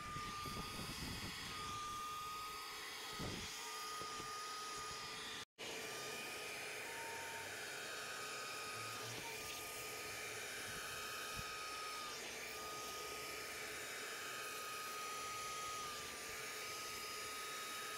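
Carpet extractor's vacuum motor running with a steady high whine as the upholstery hand tool is worked over a cloth car seat. The sound cuts out for an instant about five seconds in.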